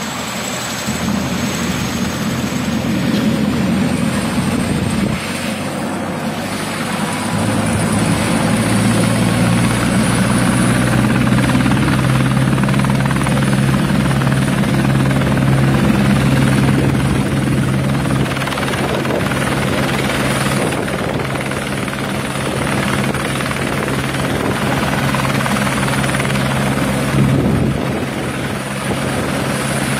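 Helicopter idling on the ground with its main rotor turning: a steady rotor-and-engine sound with a low hum that grows stronger about eight seconds in and a high thin whine that comes in a few seconds in.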